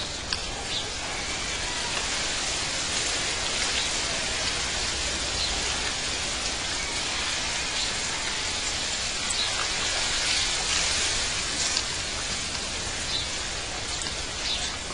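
A steady, even hiss, brightest in the upper range, with scattered faint ticks.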